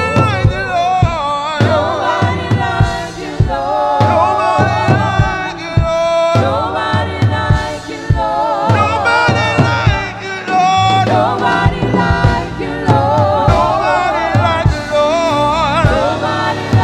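Gospel worship music: voices singing with vibrato over a band with bass and a steady drum beat.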